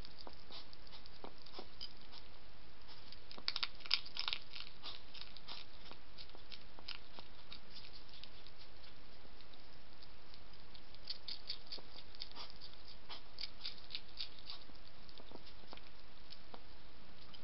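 European hedgehog eating from a bowl: a quick, irregular run of small crunching and smacking clicks, thickest about four seconds in and again around eleven to thirteen seconds, over a steady hiss.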